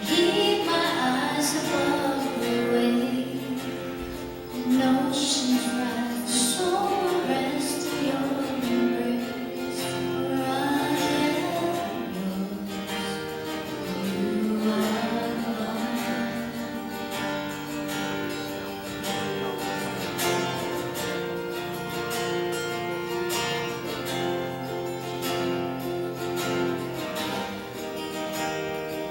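Acoustic guitar strumming with a voice singing a melody over it.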